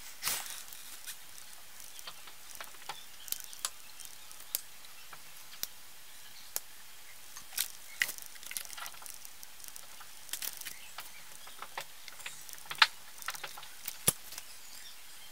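Scattered small clicks and knocks of a circuit board and a black plastic enclosure being handled and set down on a workbench, at irregular intervals, the sharpest near the end.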